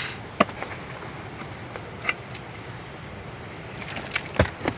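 Sharp knocks of rock as pieces are broken and pulled loose from a rock face: four separate knocks, the loudest near the end, over a steady background hiss.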